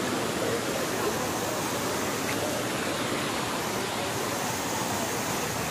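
Steady rush of water from a waterfall and the shallow rocky stream below it, tumbling over stones.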